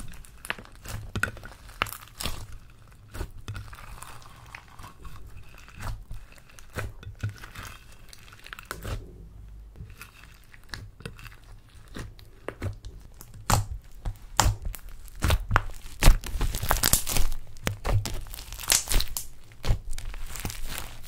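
Hands squishing, folding and stretching a large lump of slime mixed with glitter and makeup, making irregular sticky pops and crackles. The sound grows busier and louder in the second half.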